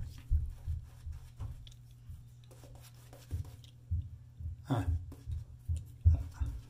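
Fingertips rubbing over freshly shaved neck skin, then a Paragon two-band badger shaving brush scrubbing lather onto the chin and jaw for a touch-up pass. Soft scratchy rubbing with irregular dull thumps over a steady low hum.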